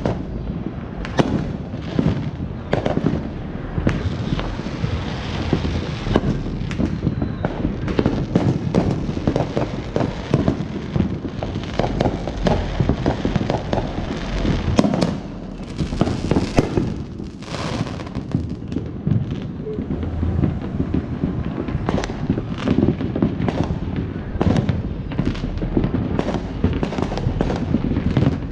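Neighbourhood fireworks going off without a break: many sharp bangs and cracks from aerial shells and firecrackers overlap one another over a constant rumble.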